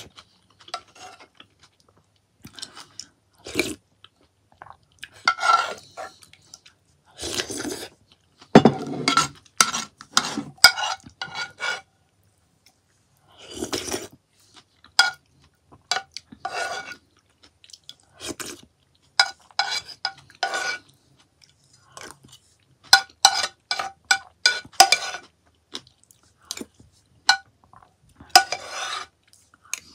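Close-up eating sounds: chewing kimchi noodles, with a metal spoon clinking and scraping against a frying pan in many short, ringing clicks.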